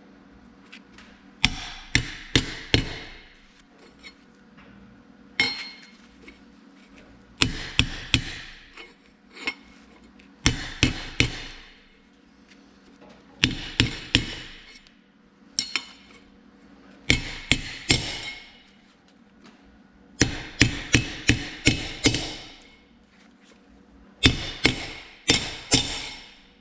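Hammer blows on a metal makeshift driver (a disc bearing flange), seating a part into the hub of a Clark front-drive axle: sharp ringing strikes in bursts of several quick blows, every two to three seconds.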